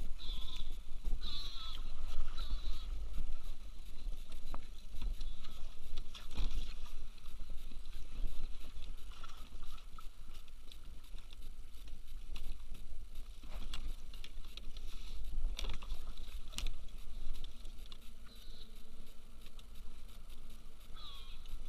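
Wind rumbling on the microphone, with water lapping against a kayak and scattered clicks of fishing tackle and pliers being handled. A few faint high-pitched chirps come near the start and again near the end.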